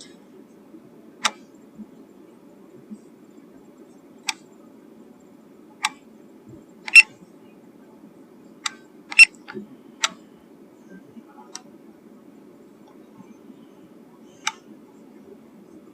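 About a dozen sharp clicks at irregular intervals over a steady low hum, with the two loudest about seven and nine seconds in.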